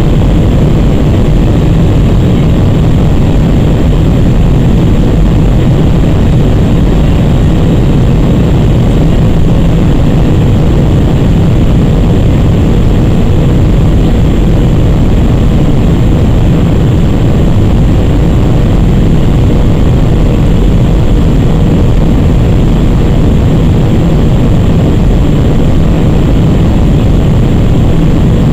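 Cabin noise inside an Airbus A319 airliner descending on approach to land: the jet engines and the airflow over the fuselage make a constant low rumble and rush that holds level throughout, with a faint thin steady tone over it.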